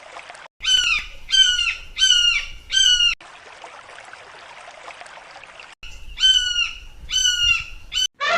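A bird calling in two runs of short calls, four and then three, each call dropping in pitch, over a steady background hiss.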